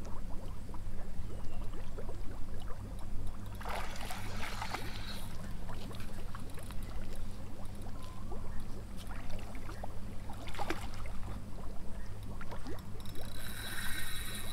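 Steady low rumble of wind on the microphone, with faint splashing from a hooked fish at the surface by the landing net. A high buzzing starts near the end.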